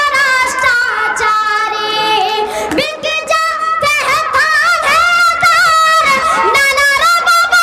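A boy singing into a stage microphone, amplified, his high voice holding long wavering notes with short breaks between phrases.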